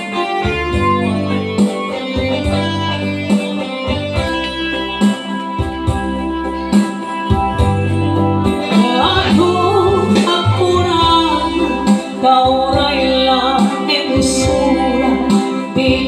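Live band music: a keyboard playing an instrumental passage with a plucked, guitar-like lead over a pulsing bass line. About halfway through, a woman's singing voice comes in over the accompaniment.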